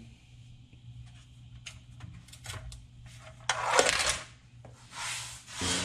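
A few light clicks and taps, then rustling handling noise close to the microphone, loudest about three and a half seconds in with a shorter burst near the end, as a hand works at the camera beside a person lying on a creeper under a vehicle.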